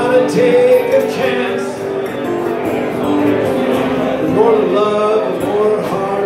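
Man singing into a microphone while playing an acoustic guitar, a solo live performance heard through the PA.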